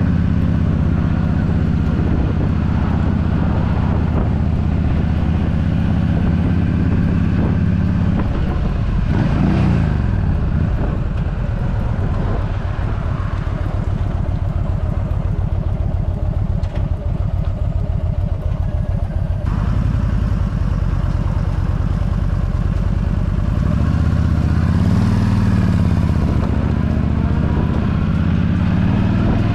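Yamaha V Star 1300's V-twin engine running as the motorcycle is ridden, with a rush of noise over it. The engine note rises about nine seconds in, settles lower for a stretch, and climbs again near the end.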